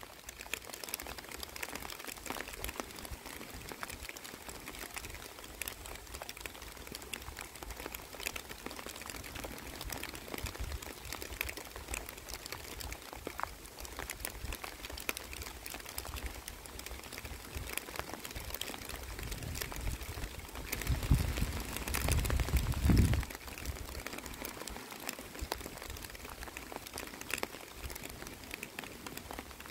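Rain falling on pond water and waterside plants: a steady, fine patter of many small drops. About two-thirds of the way in, a low rumble swells for a couple of seconds and stops abruptly.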